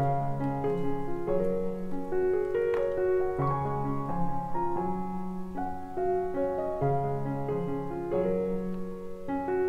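Background piano music: a slow melody of changing notes over held bass notes.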